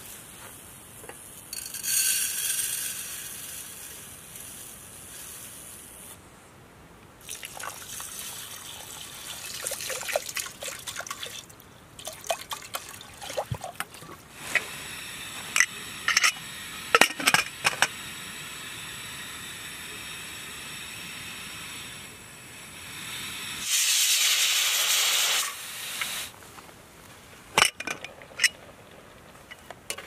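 Cooking sounds at a small butane camping stove: plastic bags rustling, the aluminium pressure cooker and its lid clinking, a steady hiss for several seconds, and a louder rushing hiss about 24 seconds in.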